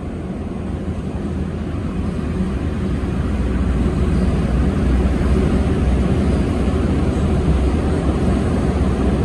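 Rush of wind and road rumble from a scooter riding at about 50 km/h through a road tunnel: a steady low noise that grows gradually louder.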